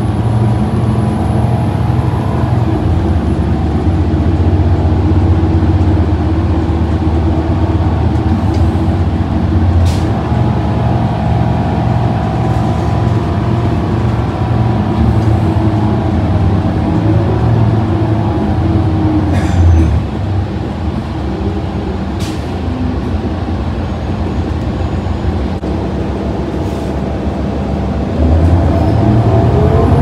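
Cummins L9 inline-six diesel engine and Allison transmission of a New Flyer Xcelsior XD40 transit bus, heard from inside the cabin while the bus drives. The engine note is steady, eases off about twenty seconds in, then climbs again near the end as the bus accelerates, with a few short sharp clicks or rattles along the way.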